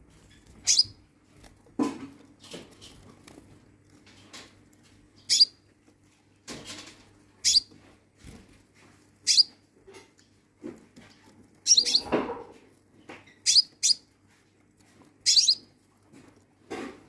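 Caged sunbird giving short, sharp high-pitched chirps, one every second or two. A few softer, lower thumps come between them, around two seconds in, near the middle and near the end.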